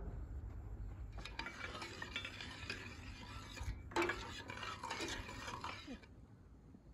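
Metal spoon stirring liquid in a stainless steel saucepan, scraping and clinking against the pan, from about a second in until near the end. There is a brief break partway through, then a single knock against the pan as the stirring resumes.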